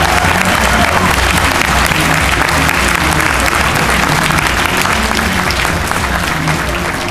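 Audience applauding: dense, loud clapping that eases off slightly near the end.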